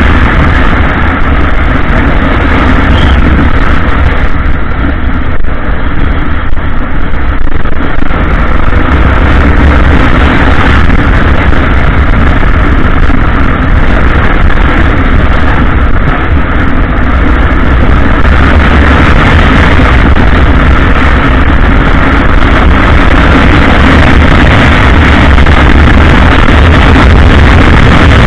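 Motorcycle riding at speed: a loud, steady wind rumble on the bike-mounted camera's microphone with the engine running underneath.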